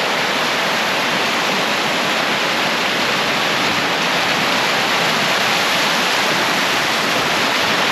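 Fast-flowing river rushing over rapids: a steady, even rush of whitewater that holds the same level throughout.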